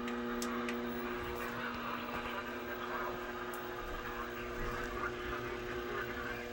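Steady electrical mains hum, several steady tones together, over a faint hiss, with a few light clicks in the first few seconds.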